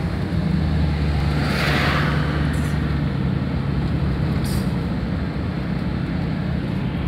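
Steady engine and road noise of a moving car, heard from inside its cabin: a low even drone, with a short rush of hiss about a second and a half in.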